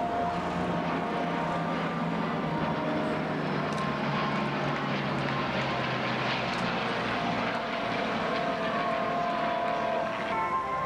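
Steady drone of a mixed formation of jet and piston warbirds (F-15 Eagle, P-51 Mustang, P-38 Lightning, F-86 Sabre) flying past together, with the hum of propellers in it and a tone sliding down in pitch near the end.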